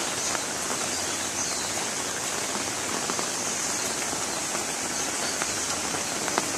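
Rain falling steadily: an even hiss of rain, with a few faint drip ticks.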